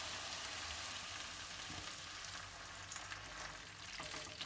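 A hot pan of sautéed vegetables sizzling just after water has been poured in; the sizzle slowly dies down. A few light clicks come near the end.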